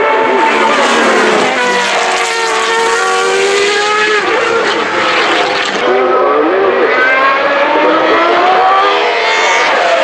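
Open-wheel racing cars' high-revving engines through a corner, pitch falling and then climbing again through the gears as they accelerate away, with more than one car heard at once.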